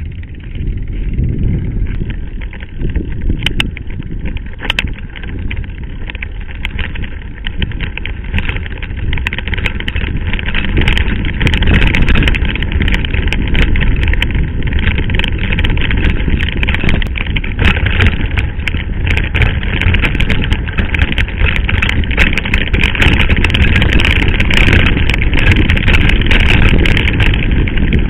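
Mountain bike riding over a rough gravel dirt track: tyres crunching over stones and the bike rattling with many sharp clicks, under a heavy wind rumble on the camera's microphone. It grows louder about ten seconds in.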